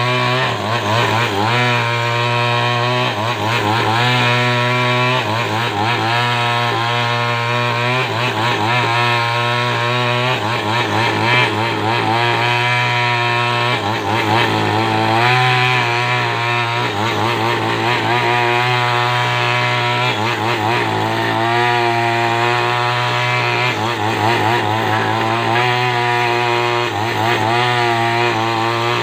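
Two-stroke chainsaw running under load, ripping lengthwise through a coconut palm log to square it into a beam. The engine runs without a break, its note wavering up and down as the cut loads it.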